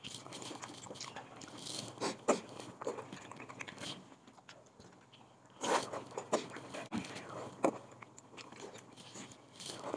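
Close-up eating sounds of a man chewing and biting pieces of chicken hotpot, wet chewing with scattered clicks. Louder bursts come about two seconds in and around six seconds in.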